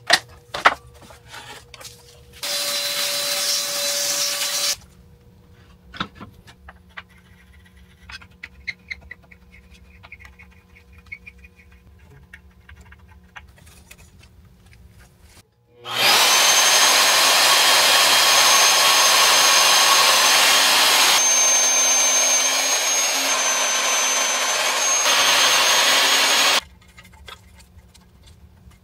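Tool and metal handling clatter, then an electric power tool running twice. It runs briefly about two seconds in, then for about ten seconds from the middle, as a steady loud noise with a high whine, cutting off abruptly each time.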